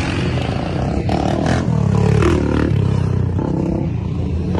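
Sport quad ATV and car engines running loudly on the street, with a cluster of sharper noises between about one and two seconds in.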